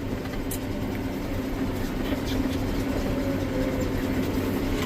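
Tractor and round baler running with a steady drone, the bale finished and not yet wrapped. A faint tone sinks slowly in pitch in the second half.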